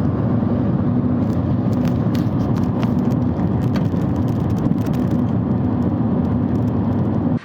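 Harley-Davidson V-twin motorcycle engine running steadily.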